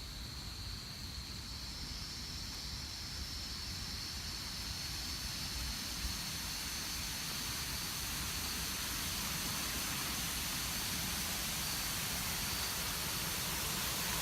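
Outdoor ambience: a rushing hiss that grows slowly louder, with a steady high-pitched drone and a low rumble underneath.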